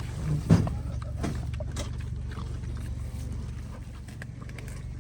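Pigs eating smashed pumpkin, with small scattered smacks and crunches and a single thump about half a second in, over a steady low hum.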